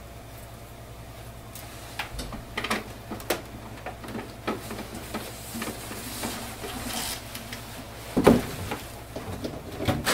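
Handling noise from a power cord being plugged into a Canon MAXIFY MB2020 inkjet printer: scattered plastic clicks and knocks, a rustle around the middle, and a heavier thump about eight seconds in.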